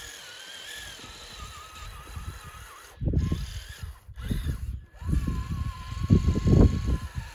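Traxxas TRX-4 RC crawler's electric motor and drivetrain whining as it drives on snow tracks, the whine's pitch wavering with the throttle. From about three seconds in, uneven low rumbling joins it and is loudest near the end.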